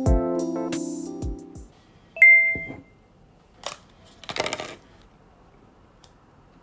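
Background music with a beat fading out, then a single bright ding that rings briefly. After it comes a faint click and a short rustle.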